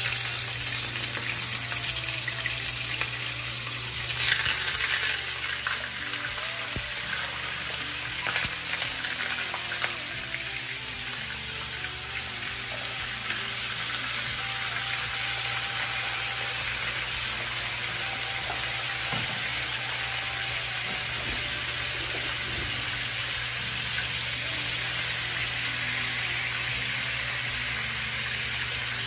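Pieces of salted fish (makayabu) frying in hot oil in a non-stick pan: a steady sizzle that flares up about four and eight seconds in as more pieces go into the oil.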